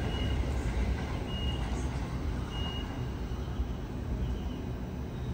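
Double-deck electric train pulling away and receding, its low rumble slowly fading. A faint short high beep repeats about every second and a half.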